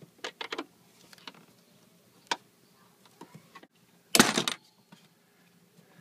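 Scattered light clicks and knocks of hand tools on metal engine parts, with one sharp click about two seconds in and a short rattling clatter about four seconds in, the loudest sound.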